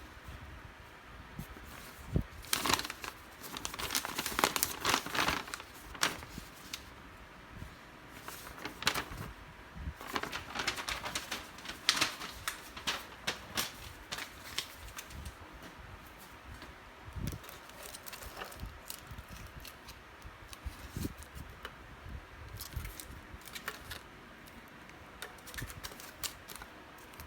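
Packaging crinkling and rustling as it is handled and unwrapped, in two main stretches with scattered light clicks and taps between.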